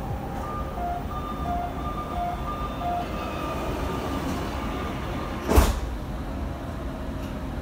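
Doha Metro train at a station: a steady low rumble under about four pairs of alternating high-low electronic beeps, the door-closing warning, then a single sudden loud thud about halfway through.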